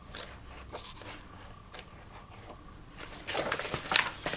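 Glossy pages of a large atlas being turned by hand: a few faint taps, then a quick papery rustle and flap about three seconds in.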